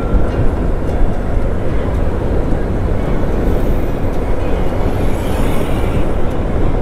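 Motorcycle riding noise on the rider's camera: steady rushing wind and road and engine noise at cruising speed. A faint higher hiss swells briefly in the middle.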